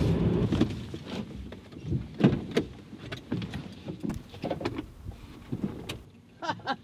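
Nissan GU Patrol's TD42 diesel engine running as the ute pulls away, fading out within the first second. Then scattered clicks, knocks and rustling as the driver climbs out of the cab through the open door.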